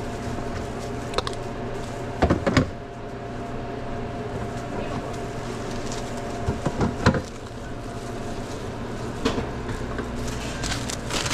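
Steady hum of restaurant equipment, with several fixed tones over a low rumble, and short knocks and clatters of things being handled behind the counter: a pair around two seconds in and another around seven seconds in.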